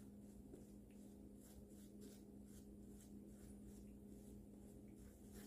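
Faint swishing of a shaving brush working lather onto the face, a few brisk strokes a second, over a steady low hum.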